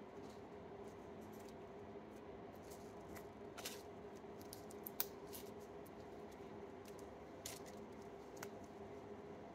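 Slime being squished and folded between the fingers, giving a scatter of small sticky clicks and pops, the sharpest about five seconds in. A faint steady hum runs underneath.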